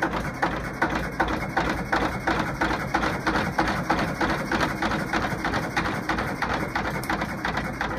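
1942 Kelvin K2 two-cylinder, 8¼-litre marine diesel engine running at a slow, even beat, each firing stroke a distinct knock.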